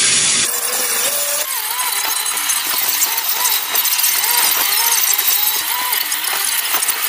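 Automatic car wash running: a loud, steady hiss of spraying water, with a wavering squeal that rises and falls and repeats quickly through the middle.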